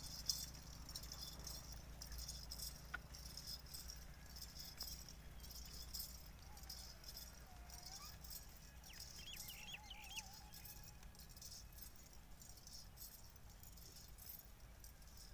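A herd of goats on the move, heard faintly as many irregular small high clicks and rattles over a low steady rumble, with a faint wavering call about ten seconds in.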